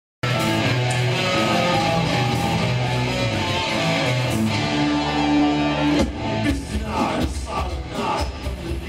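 Live rock band playing the opening of a song, with guitar: sustained chords for about six seconds, then a steady driving beat comes in.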